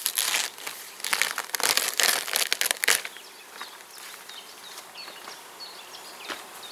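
Crackling, rustling handling noises for about three seconds, from work on an open beehive. Then it goes quieter, with a few faint short high chirps.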